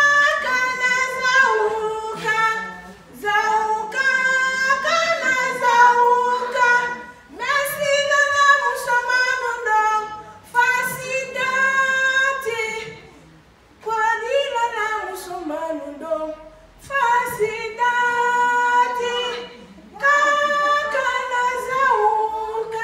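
A woman singing unaccompanied into a microphone, in phrases of long held, sliding notes separated by short pauses.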